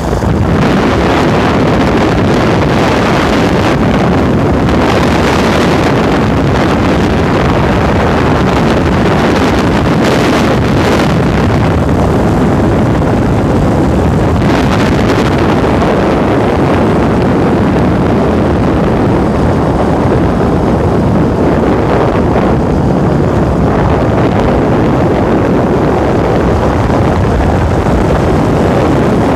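Wind rushing hard over the microphone of a phone carried on a moving vehicle, with the vehicle's running and road noise beneath. A loud, steady rush with no breaks.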